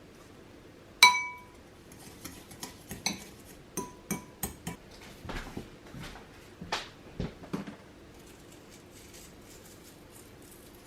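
Metal cutlery clinking against a bowl: one sharp, ringing clink about a second in, then a run of lighter clinks and taps until about eight seconds in.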